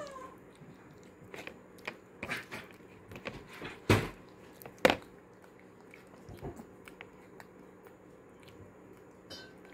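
Macaque chewing a mouthful of porridge, with scattered wet lip smacks and mouth clicks; the two loudest come about four and five seconds in.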